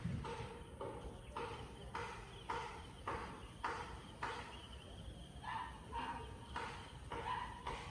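A dog barking repeatedly off in the distance, about two barks a second, with a short pause midway.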